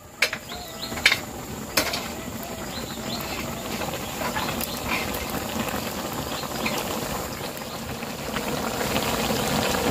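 Coconut-milk curry with fern tips boiling hard in a wide wok, a dense bubbling and spluttering that grows a little louder. Three sharp pops stand out in the first two seconds.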